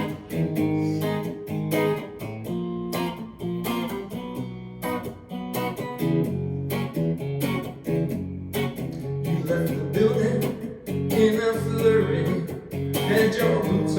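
Instrumental guitar intro to a folk-country song: a guitar strummed in a steady rhythm of repeated chords.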